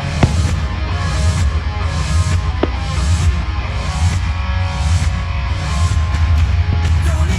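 Loud hard-rock music with electric guitar and a driving beat. A couple of sharp firework bangs cut through it, just after the start and about two and a half seconds in.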